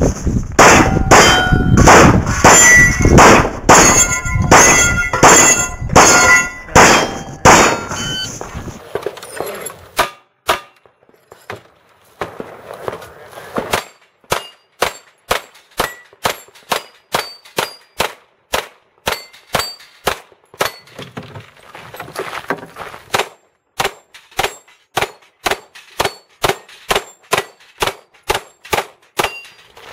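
Glock 17 9mm pistol firing fast strings of shots at steel targets, the plates ringing with a clang or ding after hits. The first several seconds are a dense run of shots mixed with ringing steel; after that the shots come crisp and separate, about two a second.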